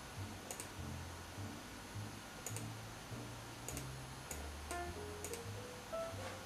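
Faint background music: a low bass line stepping from note to note, with a few higher plucked notes coming in after about four and a half seconds. Several faint clicks sound over it.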